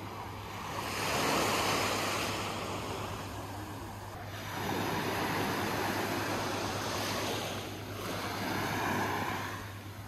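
Small waves breaking and washing up on a sandy beach on a calm sea. The surf rises and falls three times as each wave comes in: about a second in, around the middle, and near the end.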